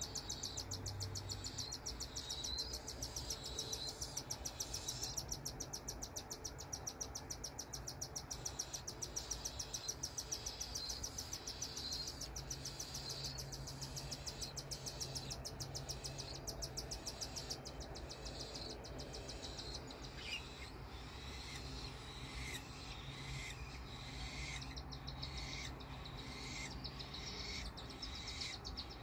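Cockatiel nestlings begging to be fed: a fast, steady pulsing chitter. About two-thirds of the way in, separate chirps join it about once a second. A low steady hum runs underneath.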